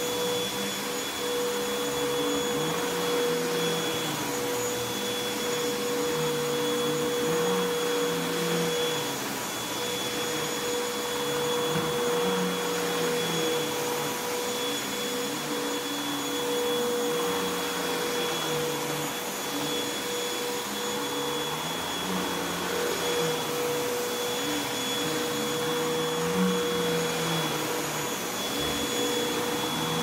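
Upright bagless vacuum cleaner running on carpet as it is pushed back and forth: a steady motor whine, with a lower tone that rises and falls with each stroke.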